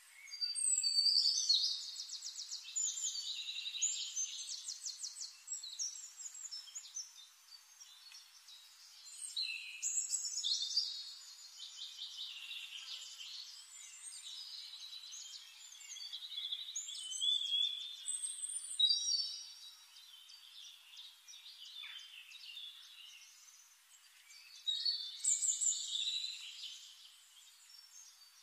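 Forest songbirds singing: four louder bouts of high, rapid trilling song, roughly eight seconds apart, with softer chirps between.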